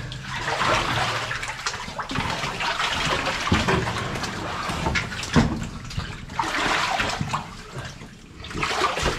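Water splashing and sloshing in surges as someone crawls through a flooded mine passage, with a couple of sharp knocks partway through.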